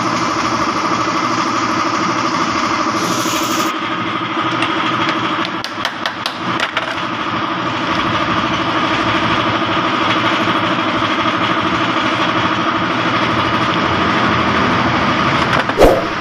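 A steady engine-like mechanical hum runs throughout, with scattered light clicks of parts being handled and a sharp knock near the end.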